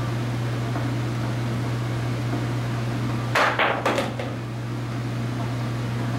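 Pool balls clicking as a shot is played: the cue striking the cue ball about three and a half seconds in, then a few quick clacks of balls hitting each other and the rail. Under it runs a loud steady low hum.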